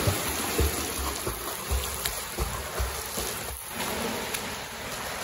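Splashing from a swimmer doing front crawl: a steady churn of water from the flutter kick, with arm strokes slapping in, and irregular soft low thumps underneath.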